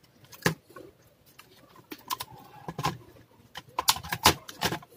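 Irregular sharp clicks and knocks of a laptop motherboard and its plastic base casing being handled and worked loose, several taps spread through, the loudest near the end.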